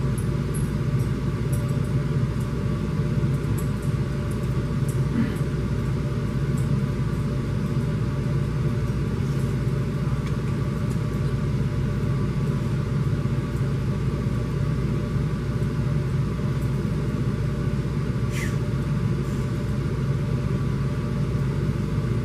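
Steady low rumble with a constant hum underneath, which the speaker puts down to water running next door.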